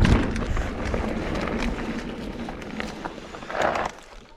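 Mountain bike riding noise: a hard knock at the start, then tyres rolling and crunching over loose dusty dirt, easing off near the end.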